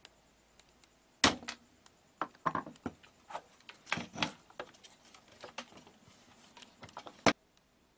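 Handling noise on a workbench: an irregular run of clicks, taps and light clatter from hands moving parts and tools. There is a sharp knock about a second in and another near the end, then it stops suddenly.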